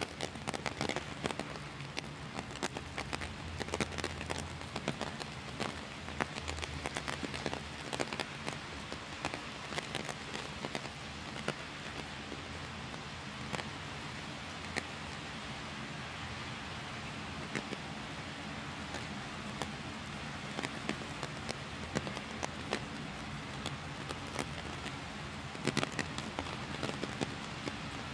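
Heavy rain falling, a steady hiss scattered with many sharp drop hits.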